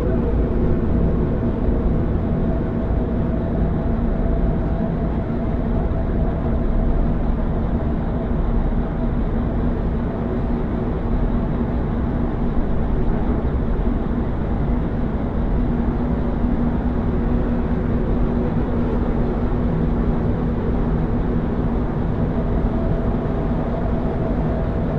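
Dark ambient drone music: a dense, low rumbling noise bed with a few held tones above it, steady in level.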